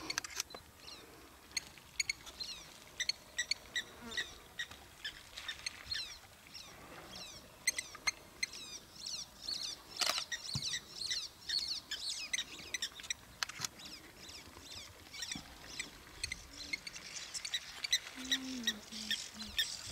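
Many small birds chirping and calling over and over, with a few sharp clicks in between.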